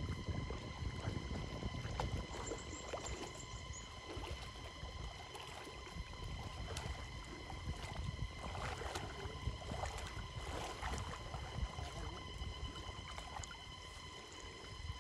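River water sloshing and splashing around a person's legs as he wades waist-deep, with a steady low rumble underneath and a faint steady high whine.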